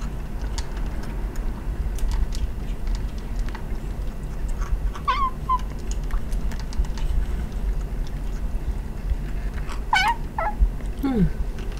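Month-old calico kitten mewing: a short high mew about five seconds in and a louder one near the end, quickly followed by a shorter mew and then a brief low falling sound.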